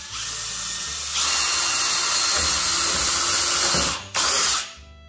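Bosch drill-driver boring a pilot hole into wood with a wood drill bit. It runs steadily, louder from about a second in, stops just before four seconds, then gives one short second burst.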